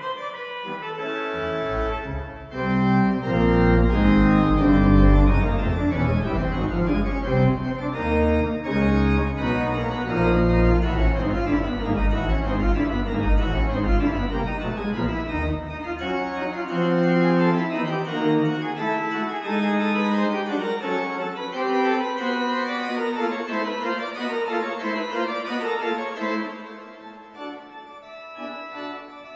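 Slow organ music: held chords over a deep bass line that comes in about a second in and drops out about halfway through, after which the upper chords go on and grow softer near the end.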